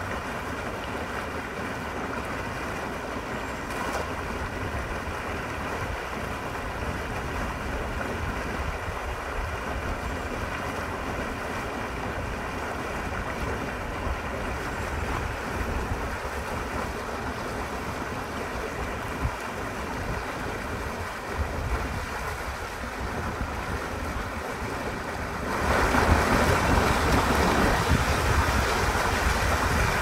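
Water pouring out of a large culvert and churning white into the river, a steady rushing noise that gets louder near the end.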